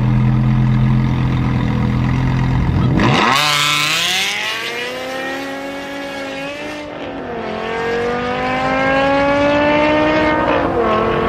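A BMW M5 and a Ford Mustang held at steady revs on the start line, then launching about three seconds in and accelerating hard, engine pitch climbing, dipping at a gear change about seven seconds in and climbing again.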